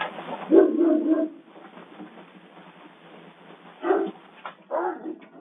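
An animal barking: a strong call soon after the start, then several shorter calls near the end, over a steady hiss.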